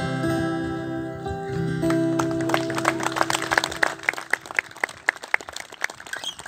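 The last chord of an acoustic guitar and a resonator guitar rings out and dies away about two seconds in. Scattered hand clapping from a small audience follows.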